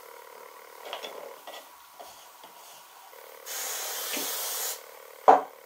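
Wooden birdhouse parts handled on a workbench, with a few light knocks and rubs, then a steady hiss lasting about a second. One sharp wooden knock comes near the end and is the loudest sound.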